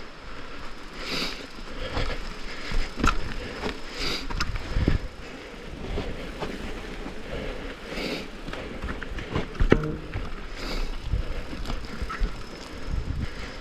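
Downhill mountain bike rolling over a rough dirt trail: tyres on dirt and rock, with the bike's chain and frame rattling and frequent sharp knocks from roots and rocks. The sharpest knock comes about ten seconds in.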